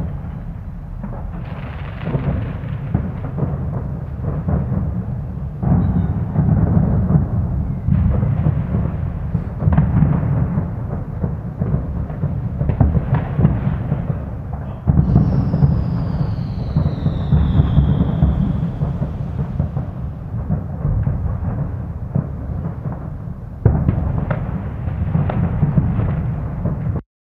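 Distant fireworks: many overlapping bangs from crackers and rockets over a dense low booming, with a falling whistle about halfway through. The sound cuts off suddenly near the end.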